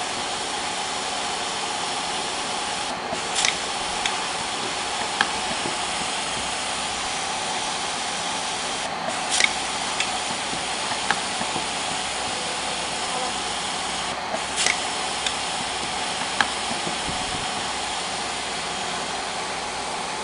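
Pneumatic cable flag-labeling machine working over a steady hiss: a short burst of sharp clicks and clacks about every five and a half seconds as it cycles to wrap a flag label around a cable, with a few single ticks in between.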